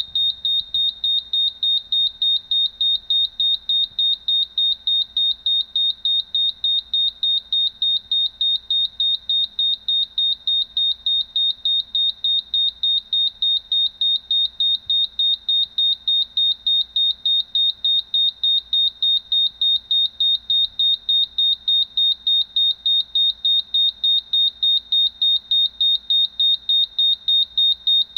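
Gas leak detector's alarm buzzer sounding after detecting the inspection test gas: a steady run of rapid, high-pitched electronic beeps, about three a second, all on one tone.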